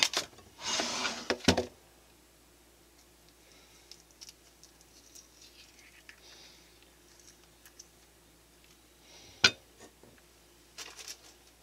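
Kitchen handling sounds: a plastic food tray scraped and rustled as it is lifted off a cutting board, with a few knocks, in the first second and a half. Then quiet small sounds of an avocado being peeled by hand, and one sharp knock near the end.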